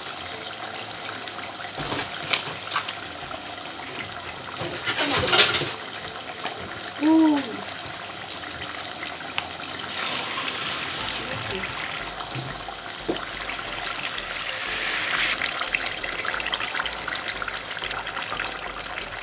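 Meat curry bubbling and sizzling in a pot on a gas hob, a steady hiss, with a few sharp knocks and a louder clatter about five seconds in.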